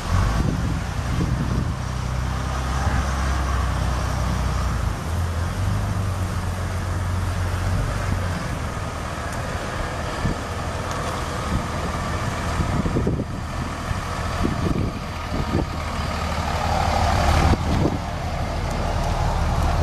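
The 2003 Dodge Ram 2500's 5.9-litre straight-six turbo diesel running steadily, its pitch stepping up for a few seconds about five seconds in, then settling back.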